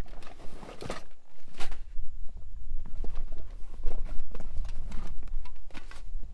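A string of irregular knocks and taps over low wind rumble on the microphone.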